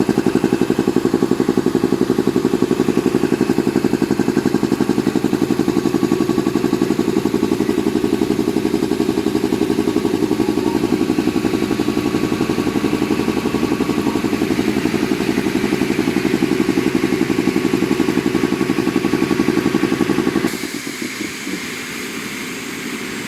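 Industrial air compressor running with a fast, even pulsing. About twenty seconds in, the sound suddenly drops and the low part largely falls away, leaving a quieter steady run.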